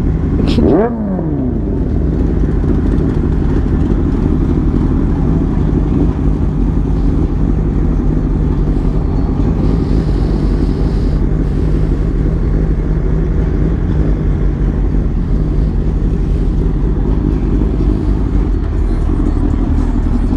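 Kawasaki ZX-6R's inline-four engine running steadily at low revs as the bike rolls slowly, with a rev dying away just after the start.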